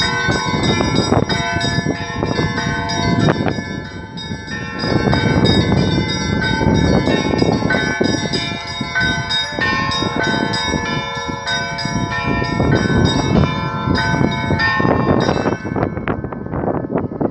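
Church bells ringing together, several bells struck in quick, overlapping strokes so their tones pile up; the ringing stops shortly before the end.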